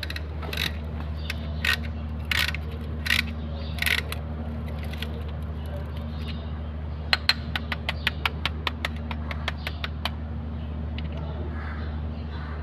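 Hand tools working on a Cummins 6BT engine during piston fitting. A few knocks come in the first few seconds, then a quick run of sharp clicks, about five a second, lasts for about three seconds, all over a steady low hum.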